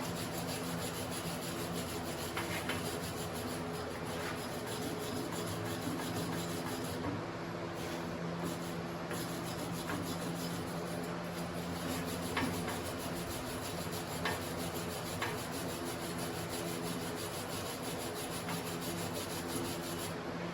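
Flux-core wire welder arc crackling and hissing steadily, over the machine's low steady hum.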